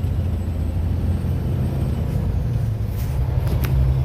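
Cummins N14 diesel engine of a 1999 International 9400 truck running, heard from inside the cab as a steady low drone, with a few light clicks or rattles about three seconds in.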